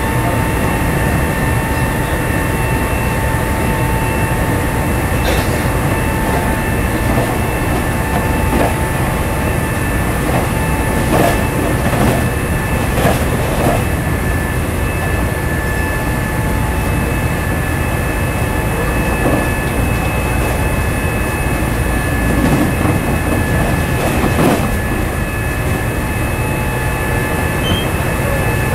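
Nankai 7100 series resistance-controlled electric train running at speed, heard from on board: a steady rolling rumble with a constant whine from the traction motors and gears. A few sharp knocks of the wheels over rail joints come near the middle and again toward the end.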